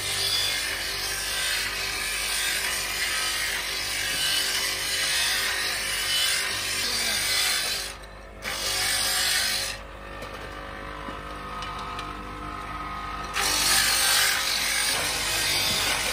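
Brake-shoe lining grinding machine running: a motor-driven carousel carries motorcycle brake shoes past an abrasive head, making a steady grinding hiss over a low motor hum. The grinding drops out briefly about eight seconds in, then thins for a few seconds before coming back at full strength.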